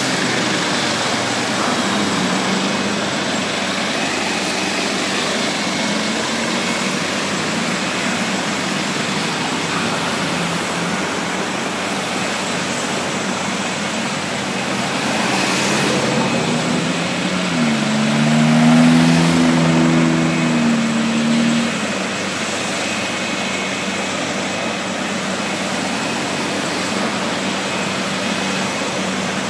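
Road traffic passing on a multi-lane highway, with steady engine and tyre noise. About eighteen seconds in, one passing vehicle's engine rises in pitch and holds for a few seconds. This is the loudest moment.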